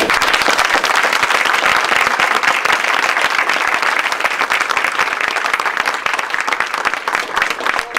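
Audience applauding: many hands clapping at once, steady throughout and dying away at the very end.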